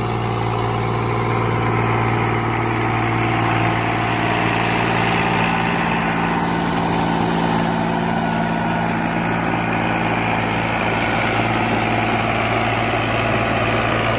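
New Holland farm tractor's diesel engine running steadily under load, driving a rotavator whose blades churn through the soil.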